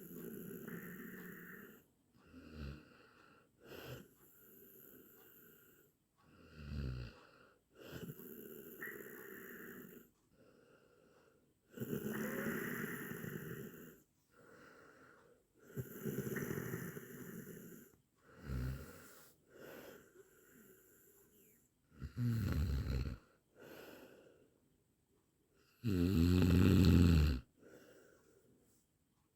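A person snoring in an uneven series of snores, each lasting one to two seconds with short pauses between. The loudest snore comes near the end.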